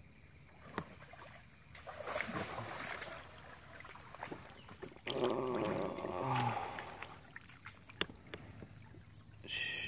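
River water splashing and swishing under paddle strokes from a small boat, loudest about five to six and a half seconds in, with a few light knocks.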